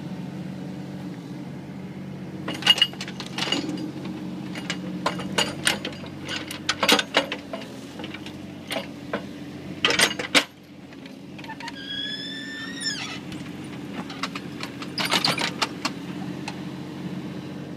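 Mini excavator's engine running steadily while the machine works at a stump, with repeated sharp clanks and knocks. About twelve seconds in there is a brief high squeal lasting about a second.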